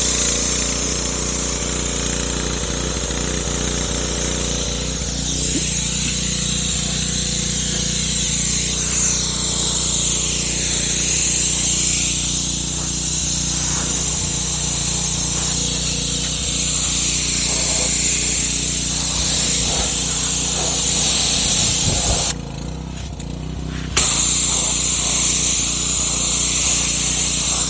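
A pressure washer runs, with its pump humming steadily under the hiss of water jets blasting from a 16-inch undercarriage cleaner against the car's underside and the concrete. Near the end the spray cuts off for a second or two as the trigger is released, then starts again.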